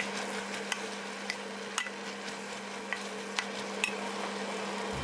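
Vegetables and scrambled egg sizzling in a stainless-steel wok as they are stirred with a spoon, with a few light clicks of the spoon against the pan over a steady low hum.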